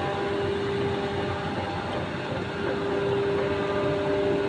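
Steady machine-shop noise: a machine running with an even hum and a single steady tone through it.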